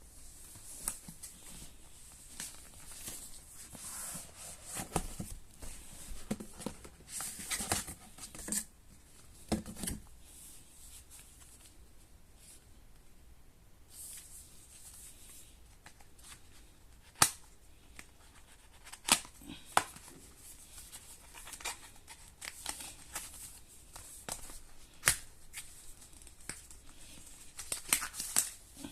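Tablet packaging being handled and opened: rustling and tearing of wrapping, with scattered sharp clicks and taps. The loudest are a few single clicks in the second half.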